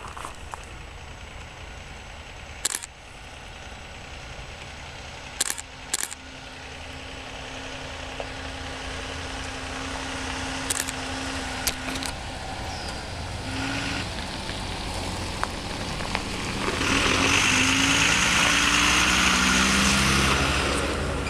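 Fire engine approaching with its engine running, growing steadily louder, then passing close by with a loud rush of engine and tyre noise in the last few seconds. A few sharp clicks sound in the first six seconds.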